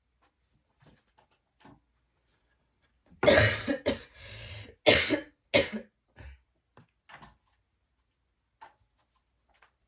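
Coughing: a long, harsh cough about three seconds in, followed by two shorter coughs, with a few faint clicks around them.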